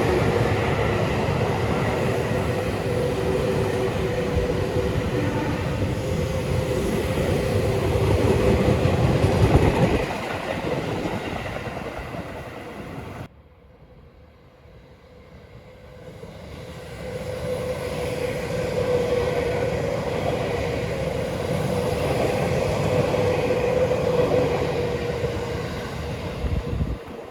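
Seibu Shinjuku Line electric commuter train passing close by, wheels running over the rails with a loud steady rumble. The sound cuts off abruptly about 13 seconds in, then a second train approaches and passes, fading near the end.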